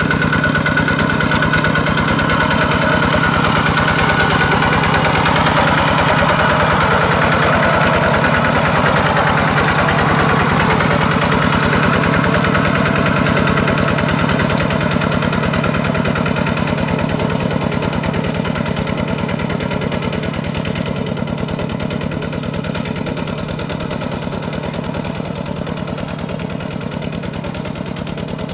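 Single-cylinder diesel engine of a Kubota RT140 walking tractor running steadily under load as it drags a disc plough through wet paddy mud, growing fainter over the second half.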